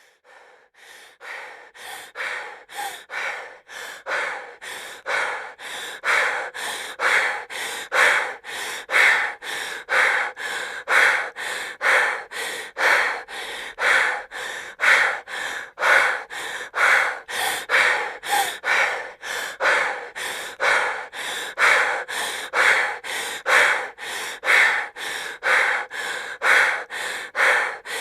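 A woman breathing heavily and fast, quick in-and-out breaths at about one breath a second, starting faint and growing louder over the first few seconds, then keeping an even pace.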